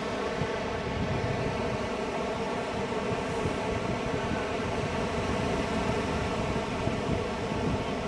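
Steady wash of ocean surf and wind, an even noise with no breaks.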